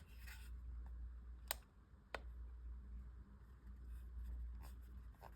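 Buttons on a handheld remote control being pressed: two sharp clicks a little over half a second apart, then a few fainter ticks near the end, over a low steady hum.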